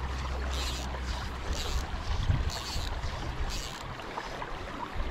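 Rushing water from a river riffle, a steady hiss, with wind buffeting the microphone in gusts from about two seconds in and a soft swish about once a second.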